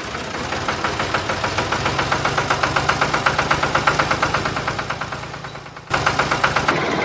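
Tractor engine idling with an even, rapid chug. It fades about five seconds in and comes back sharply near the end.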